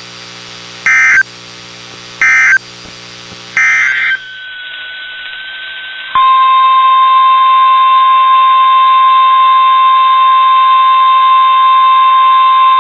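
Three short bursts of shrill, warbling data tones from an Emergency Alert System SAME signal, the end-of-message code that closes the weather radio test, over a steady electrical hum from the receiver. After a cut and a moment of faint hiss, the NOAA Weather Radio 1050 Hz warning alarm tone starts about six seconds in: one loud, steady, unwavering tone.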